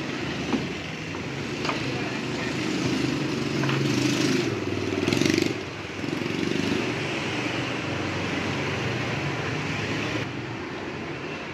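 Steady street traffic noise of passing motorbikes, swelling louder about three to five seconds in as a vehicle goes by, with a few light clicks.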